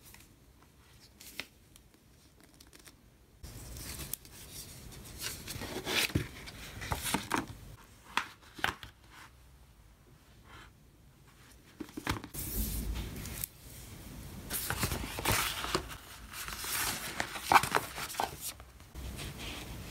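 Paper handling: a hardcover book's paper dust jacket rustling and sliding with a few light knocks, then a large folded paper sheet crinkling as it is opened out in the second half.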